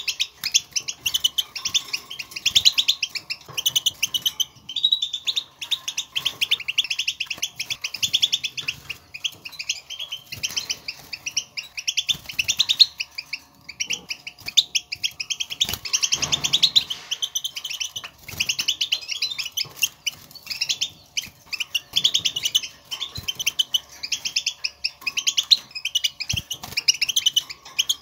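European goldfinch twittering: rapid runs of high chirping contact calls, the calls goldfinches use to call to one another, broken by short pauses.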